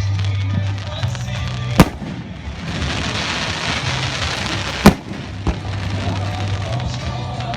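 Fireworks going off: two sharp, loud bangs about three seconds apart, with a crackling hiss between them and a smaller pop soon after the second bang.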